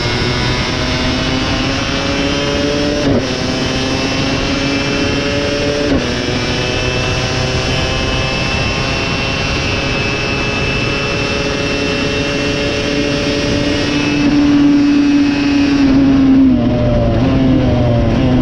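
KTM 250 SX two-stroke motocross engine at racing speed, climbing in pitch and shifting up twice, with a sharp drop in revs at each change. It holds high revs, then backs off and picks up again near the end.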